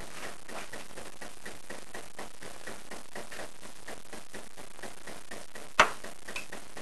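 Steady electronic hiss with faint crackling, typical of a small low-quality camera microphone, broken by one sharp click near the end.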